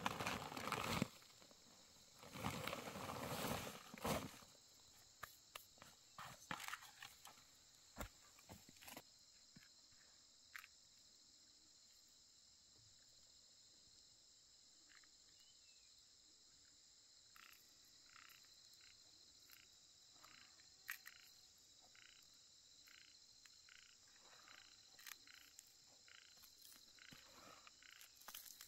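Faint chorus of frogs and insects: a steady high-pitched trill, joined in the second half by short calls repeating about once a second. Loud rustling noises fill the first few seconds, with scattered clicks after them.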